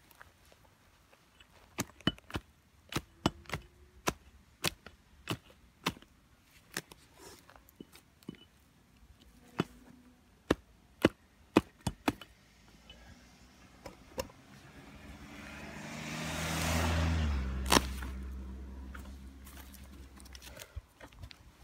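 Hatchet chopping through the roots of a Kaizuka juniper stump: a run of sharp, irregular strikes, several every second or so. Later a rising rush of noise with a low rumble builds and peaks in one loud crack about three-quarters of the way through, then fades.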